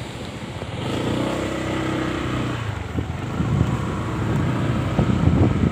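Honda motor scooter's engine picking up as it pulls away from a standstill and gathers speed. Irregular low rumbling, growing louder from about three seconds in, as the scooter moves off.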